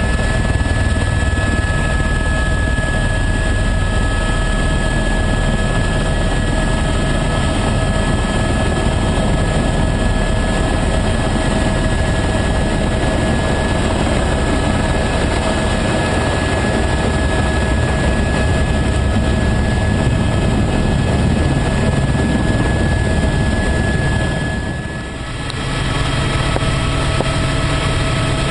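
Helicopter cabin noise from inside a flying tour helicopter: a steady high whine over a deep, even rotor and engine rumble. The noise dips briefly near the end, then returns unchanged.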